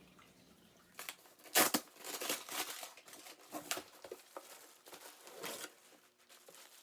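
Plastic packaging crinkling and tearing as items are unwrapped, in irregular rustles with the loudest crackle about one and a half seconds in.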